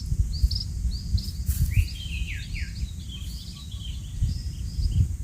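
Small birds giving rapid, overlapping short chirps at varied pitches, busiest in the middle, over a steady low rumble.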